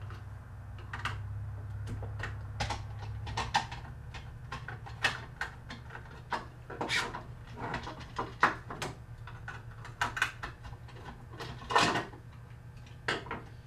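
Hand-turned Phillips screwdriver backing screws out of a patio umbrella's crank housing, with irregular small clicks and scrapes as the screws turn and the parts are handled.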